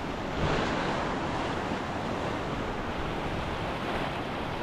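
Steady rushing wind, buffeting the microphone with a low rumble, swelling a little about half a second in.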